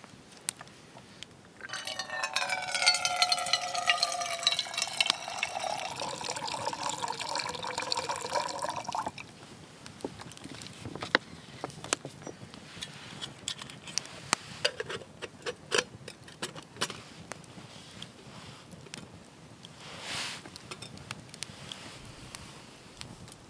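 Water poured from a plastic bottle into a metal camping mug, starting about two seconds in and lasting about seven seconds, its pitch changing as the mug fills. After that, a campfire crackles with scattered sharp pops.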